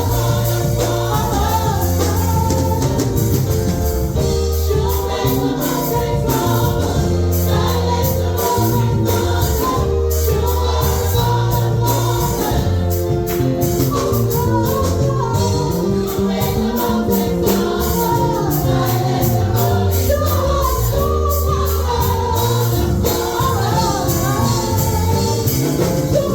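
Gospel music: a choir singing with a steady beat of tambourine and percussion over a sustained bass line.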